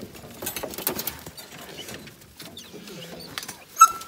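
Hunting dogs scrabbling and jumping down out of a metal dog box, with paws and gear scuffling and clattering. Near the end comes one short, sharp dog yelp, the loudest sound.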